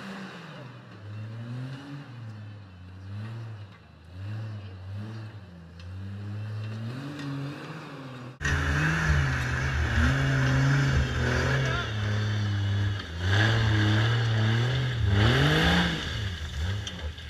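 Rock-crawling Jeep's engine revving up and down in short swells as it works over boulders. About eight seconds in the sound turns suddenly louder and closer, with harder revs and a steady hiss underneath.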